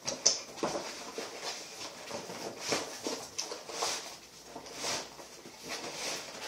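White mailing envelope crinkling and rustling as a cardboard box of pennies is pushed into it, with irregular soft scrapes of cardboard against the envelope.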